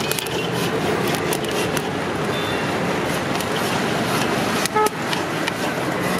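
Steady street traffic noise with one short vehicle horn toot just under five seconds in.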